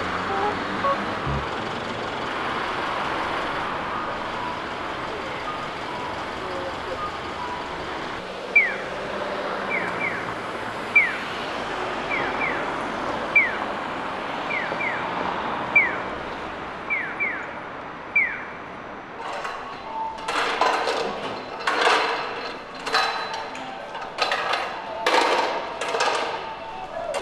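City street ambience: a steady background hum, with a series of short, high, falling chirps repeating irregularly through the middle. Louder uneven sounds come in over the last several seconds.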